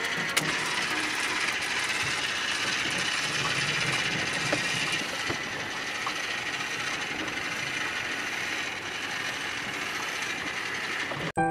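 Toy locomotive's small electric motor and plastic gears whirring steadily as it runs along plastic track, driven by a candle-heated thermoelectric generator. A sharp click comes just after the start, and the sound cuts off suddenly near the end.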